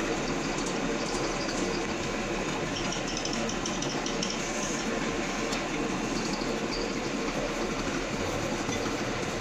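Big lathe running steadily at slow speed, its chuck spinning a heavy cast coupling with no cut being taken while the coupling is checked for running true. Steady machine noise with a faint even hum.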